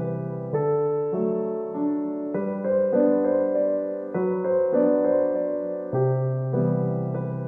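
Background music: a gentle solo piano piece playing a steady run of notes and chords.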